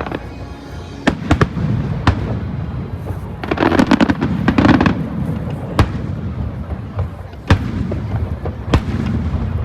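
Aerial fireworks going off: sharp single bangs every second or two, and a dense volley of crackling bursts and booms in the middle. A steady murmur from a large crowd runs underneath.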